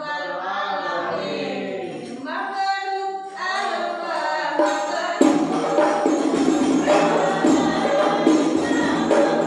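Voices singing together, joined about five seconds in by hand-held rebana frame drums beating a steady rhythm under the singing.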